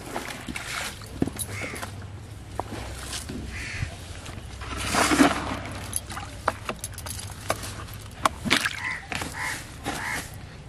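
Rustling of wet weeds and handling clicks as a catfish is pulled in, then a fish splashing and thrashing in a plastic basin of water about five seconds in, the loudest sound. A few short bird calls come near the end.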